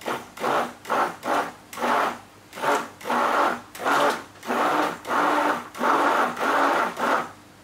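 Electric stick blender run in short on-off bursts, about two a second, the bursts growing longer toward the end and stopping just before it. It is mixing soap batter of oil and lye solution that has reached trace, thick like mayonnaise.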